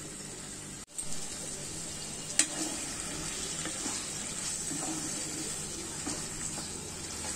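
Marinated chicken pieces sizzling steadily in oil with fried onion masala in a nonstick frying pan, stirred with a wooden spatula that lightly taps and scrapes the pan a few times. The sound cuts out briefly about a second in.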